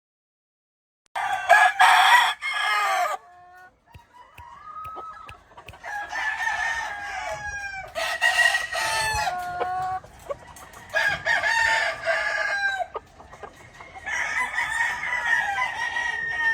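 Gamefowl roosters crowing, one long crow after another with short gaps, and shorter clucking calls between the crows; it starts about a second in.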